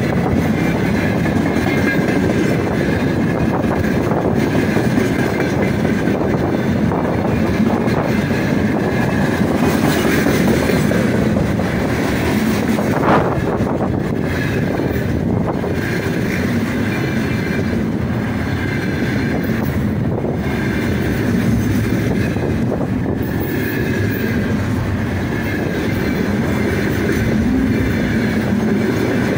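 Heavy freight train rolling past close by at speed: a steady rumble and rattle of wheels on rail as tank cars and then container flatcars go by, with clickety-clack and one sharp knock about thirteen seconds in.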